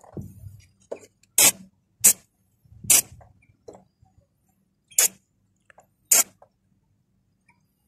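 Five short hissing bursts of aerosol cleaner sprayed onto a removed throttle body, at uneven intervals.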